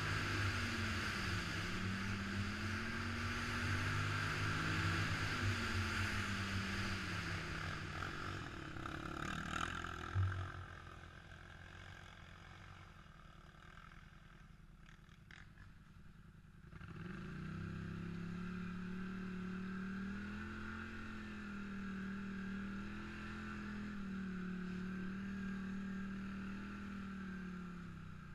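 ATV engine running under throttle, its pitch rising and falling. A sharp knock comes about ten seconds in, then the engine is much quieter for several seconds before it runs steadily again.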